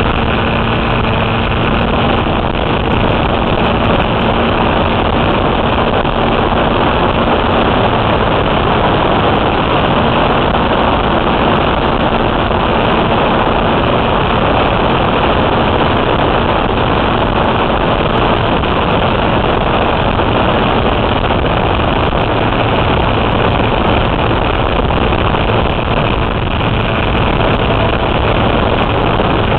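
Model airplane's engine running steadily, heard from a camera mounted on the plane, with the rush of airflow blanketing it in an even, loud noise.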